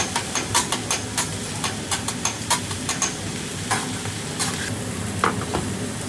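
Food sizzling on a hibachi griddle, with quick irregular metal clicks and taps of utensils on the hot plate that thin out after about three seconds.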